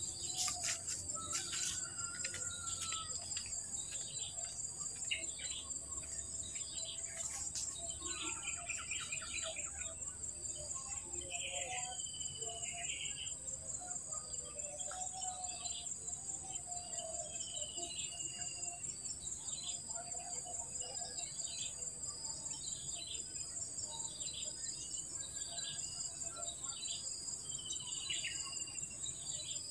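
Steady high-pitched drone of an insect chorus, with birds chirping over it: short repeated chirps about once a second and a few longer sliding whistled calls.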